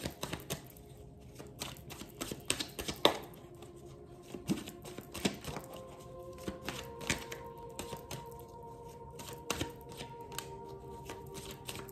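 A deck of tarot cards being shuffled by hand: a run of soft, irregular card clicks and slaps, with a few sharper taps. Quiet background music with long held notes comes in about halfway.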